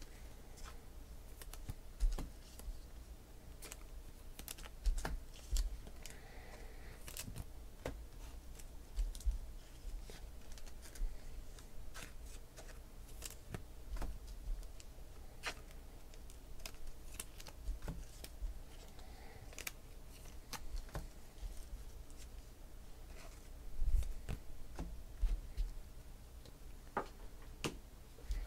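Trading cards being handled on a table: cards slid, tapped and set down, giving irregular light clicks and taps with a few soft thumps.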